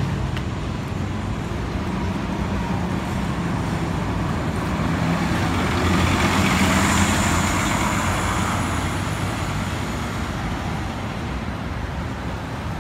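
NovaBus LFS articulated city bus pulling away and passing close by, its diesel engine and drive noise growing to the loudest point about halfway through, then fading into the steady rumble of street traffic.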